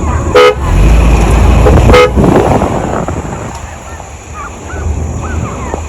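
Two short horn-like toots about a second and a half apart over a steady vehicle rumble, with a pack of hunting hounds baying faintly in the distance.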